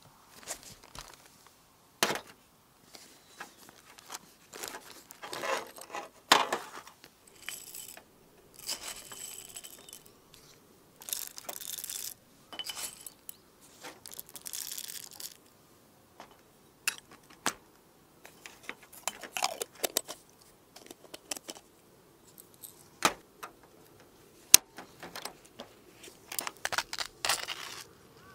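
Irregular close-up handling noises: scattered sharp clicks and clinks among stretches of rustling and crinkling.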